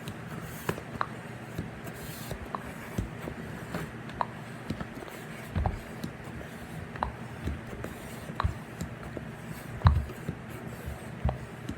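Balloon and hand pump being handled and worked: irregular light clicks, taps and rubbing, with a few soft low thumps, the loudest about ten seconds in.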